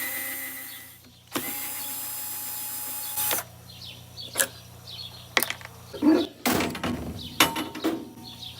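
Power drill driving screws out of a mower housing in two steady runs: the first winds down about a second in, the second stops sharply just after three seconds. After that come scattered clicks and knocks of screws and plastic and metal parts being handled.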